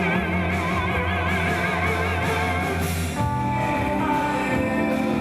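Band music: a wavering, vibrato-rich melody over a held low bass note, with the harmony shifting to new chords about three seconds in.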